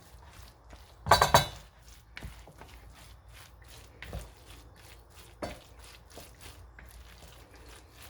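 A utensil stirring a potato batter in a bowl, with a louder clatter against the bowl about a second in and a few softer taps and scrapes after.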